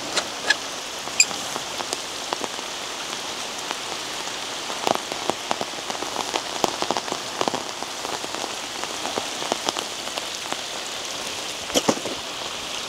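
Rain falling: a steady hiss with many scattered taps of drops landing close by, thicker in patches about five seconds in, around seven seconds, and near the end.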